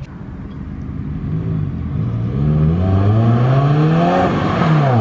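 2018 Subaru WRX's turbocharged 2.0-litre flat-four, running through a MagnaFlow axle-back exhaust with the mufflers deleted, accelerating toward and past. The engine note climbs briefly, dips, then climbs again for longer while getting louder, and falls sharply near the end.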